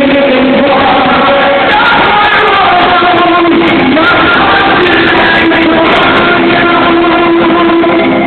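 Live pop song with a band and a singer, the voice holding long notes over the accompaniment; the recording is loud and sounds dull, with no high treble.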